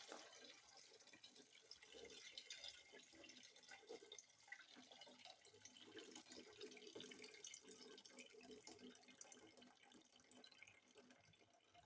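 Faint trickling and dripping of soy milk straining through a sieve cloth into a bowl as the bean mash is squeezed.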